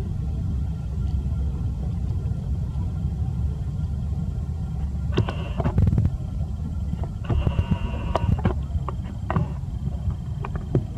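Steady low outdoor rumble, with two short pitched sounds about five and seven seconds in and a few faint clicks.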